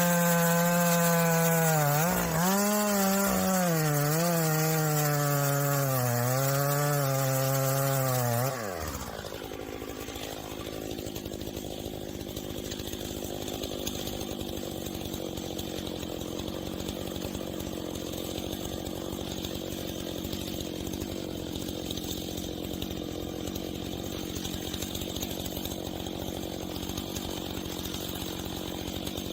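Two-stroke chainsaw running at high revs, its pitch dipping and recovering as the chain bogs in the cut. About a third of the way in it cuts off abruptly, giving way to a quieter, rougher chainsaw sound that carries on steadily.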